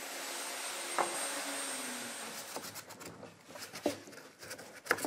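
Table router winding down after being switched off: its whirring hum falls in pitch and fades over the first two seconds, with a click about a second in. Then come a few light, scattered knocks and clicks.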